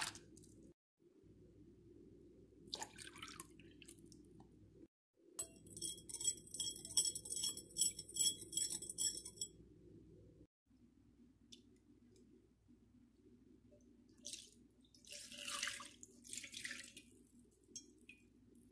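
Liquid poured into a glass bowl with a couple of splashes, then a whisk rattling quickly and evenly against the glass as the liquid is stirred for about four seconds. Near the end the liquid is poured out into a glass baking dish.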